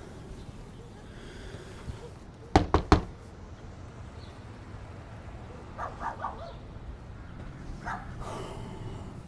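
Three quick, loud knocks on a front door, close together.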